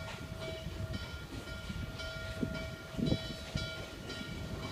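Steam locomotive N&W 611 approaching out of sight, a low steady rumble under a bell ringing in a regular rhythm of about two strokes a second. A couple of low thumps come about two and a half and three seconds in.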